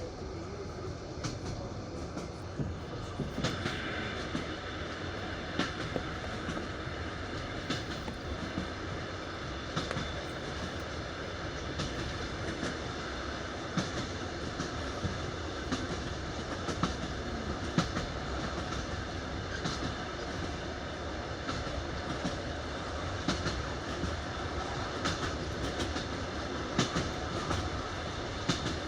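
Passenger train running over jointed rail on wooden sleepers: a steady rumble of the carriage with the classic clickety-clack of wheels striking the rail joints, sharp clicks about every two seconds.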